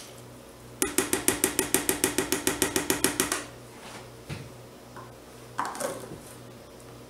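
A quick run of about twenty knocks against a plastic mixing bowl, some eight a second for about two and a half seconds, each with a slight ringing tone. A couple of lighter knocks follow.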